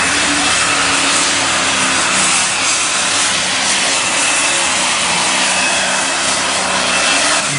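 Unlimited super stock pulling tractor's engine running flat out under full load as it drags the sled, a loud steady racket with a wavering engine note and a thin steady high whine over it.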